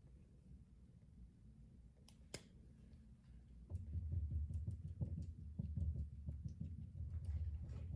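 A lipstick tip dabbed over and over onto clear slime, giving a quick run of soft, dull taps and small sticky clicks that starts about four seconds in. Two sharp clicks come a little earlier, around two seconds in.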